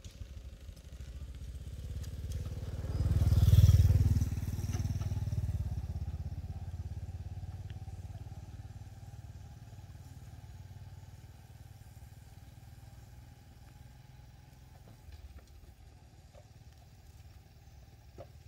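A passing motor vehicle's engine: a low hum that builds to its loudest about four seconds in, then fades away over the next ten seconds.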